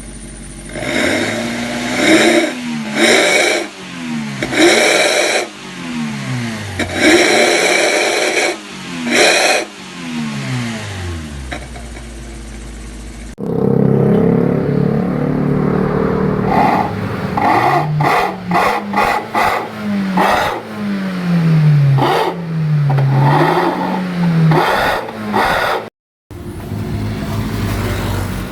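Petrol car engine breathing through an aftermarket 'suos ngorok' knalpot (exhaust), revved in repeated sharp throttle blips. Each rev shoots up in pitch and drops back, giving the deep growling exhaust note the knalpot is sold for. The sound cuts off abruptly a few times.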